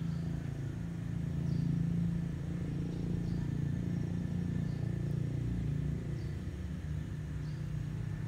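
Steady low hum of a running engine, with a faint short high chirp repeating about every second and a half.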